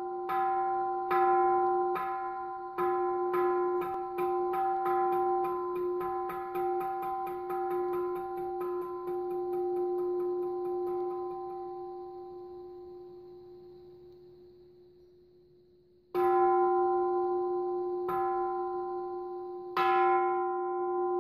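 Buddhist temple bell struck again and again, the strikes coming faster into a roll that dies away. After a few seconds of fading ring, it is struck three more times about two seconds apart, each strike left to ring.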